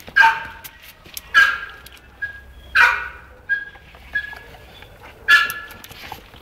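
A dog giving short high-pitched yelping whines: four louder cries about a second or more apart, with fainter brief whines between them.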